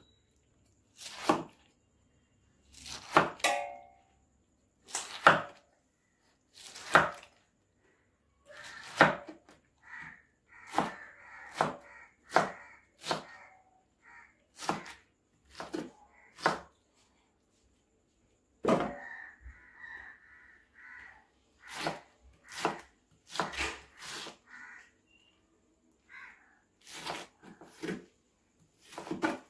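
Knife chopping through peeled pineapple onto a wooden cutting board: about two dozen sharp knocks at an uneven pace, with a couple of short pauses.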